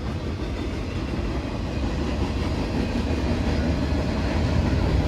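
Freight cars of a long CSX freight train rolling past close by: a steady low rumble of wheels on rail that grows slightly louder.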